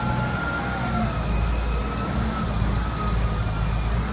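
Large diesel forklift running as it drives: a steady low engine drone with a steady high whine over it.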